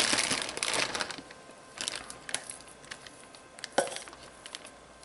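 Plastic zip-top bag crinkling as cooked chicken is pulled out of it, dying away after about a second into light rustles and small taps as the meat is handled in a bowl, with one sharper tap near the end.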